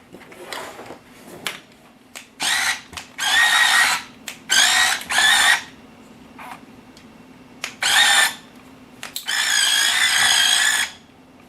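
Electric drive motors and gearing of a Die Cast Masters 1/16-scale RC Cat loader whining in short bursts as it is driven. There are about six bursts, the longest near the end.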